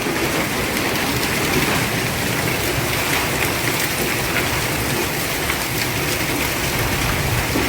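Hailstorm downpour: hail and heavy rain pelting hard surfaces in a dense, steady patter of countless small impacts.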